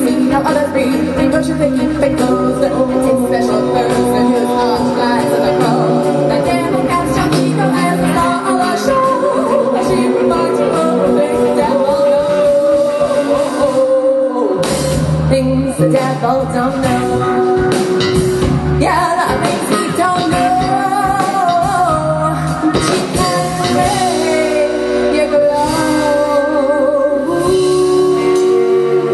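A live rock band playing, with a woman singing lead over drum kit, electric guitar and keyboard.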